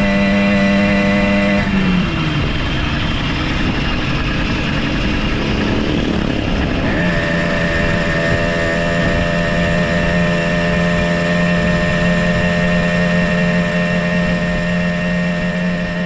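49cc two-stroke motorized-bicycle engine with a fat belly expansion pipe and a welded-on stock muffler, running while being ridden, sounding really smooth. About two seconds in the revs drop away and the note goes rough, then it climbs back and settles into a steady note again around seven seconds in.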